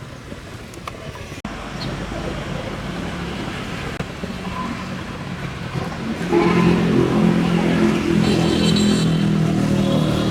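A motor running steadily, getting louder and fuller about six seconds in.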